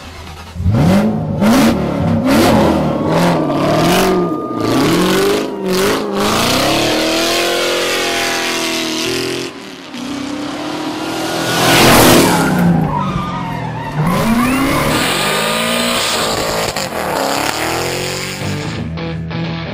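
Police car drifting: the engine revs up and down through the corners while the tyres squeal and skid, loudest about twelve seconds in.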